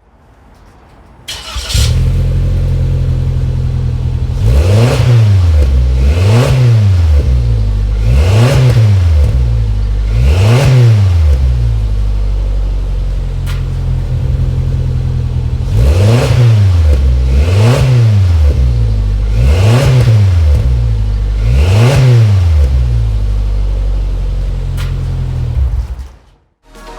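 Suzuki Jimny Sierra JB74's 1.5-litre four-cylinder engine breathing through a Yoshimura titanium aftermarket muffler: it starts about a second and a half in and idles, then is blipped eight times in two sets of four quick revs, each rising and falling back to idle, with a few seconds of idle between the sets. The sound cuts off suddenly near the end.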